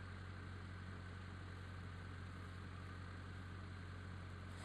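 An off-road vehicle's engine idling steadily: an even low hum with a faint constant whine above it.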